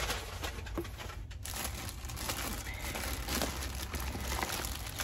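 Plastic bags of packaged cosmetics crinkling as they are handled.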